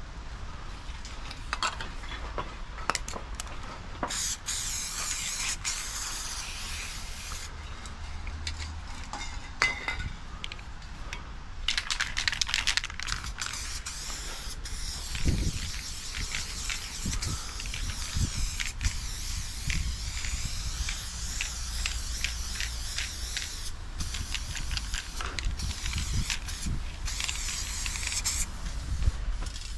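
Aerosol spray paint can hissing in long bursts as a black fill is sprayed on, the longest running about twelve seconds; short clicks and knocks come between the bursts.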